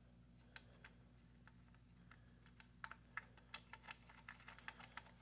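Faint small clicks and taps from hands fitting an AIO CPU cooler's mounting hardware, the nuts being worked onto the pump block's studs: a few scattered clicks at first, then several a second from about three seconds in.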